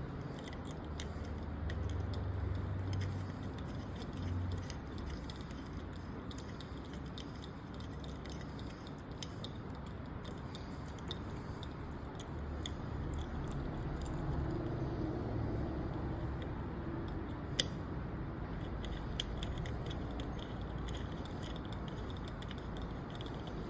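Small metal lamp-arm parts being handled and fitted, with faint clinks and rattles and one sharper click about two-thirds of the way through, over a low steady background hum.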